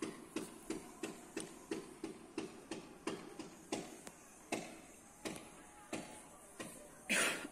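Distant fireworks popping: faint, sharp bangs at a steady rate of about three a second, then more irregular. A short, louder rush of noise comes near the end.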